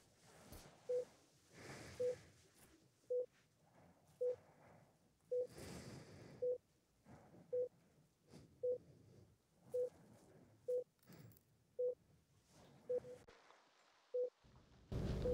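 Short electronic beeps at one steady mid pitch, repeating evenly about once a second, about fourteen in all. A louder background noise cuts in abruptly near the end.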